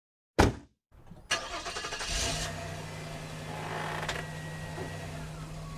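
A sharp thump, then an engine starting and settling into a steady idle.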